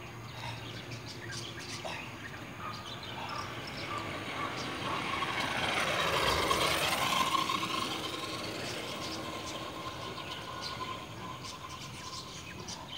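A small electric scooter passing close by on an asphalt road: a swell of tyre and motor noise that builds to a peak about six seconds in and then fades away.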